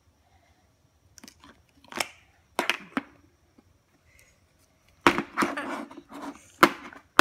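Hard plastic clicking and knocking as a Play-Doh tub and its lid are handled: a few scattered clicks at first, then a denser run of sharp knocks from about five seconds in.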